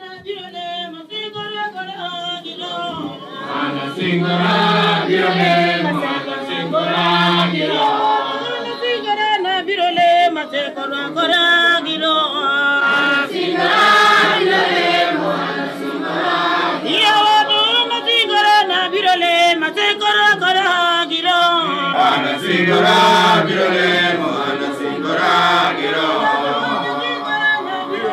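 Church congregation singing a hymn together, many voices at once.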